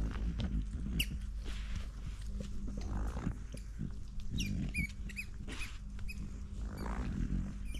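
Close, muffled sounds of a mini shar pei walking, picked up by a camera harnessed to its back: paw steps, breathing and the harness rubbing over a steady low rumble. A few high chirps come in about halfway through.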